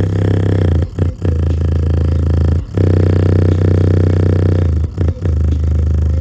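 Subwoofer playing loud, sustained bass tones with a buzzing, distorted edge, cutting out briefly several times. The owner calls its sound very bad.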